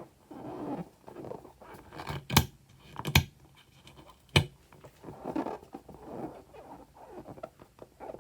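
Slime being squeezed and stretched by hand: soft irregular squelching with three sharp pops from air pockets, about two, three and four seconds in.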